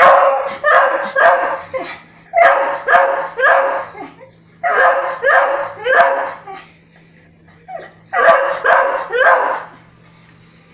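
Beagle barking in quick runs of three or four short, loud barks with pauses between runs, begging for meat left on the stove.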